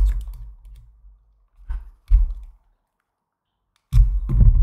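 Hard plastic doll parts clicking and knocking as they are handled and pried at by hand, with dull thuds against the table. One knock at the start, two more about two seconds in, and a louder cluster of knocks near the end.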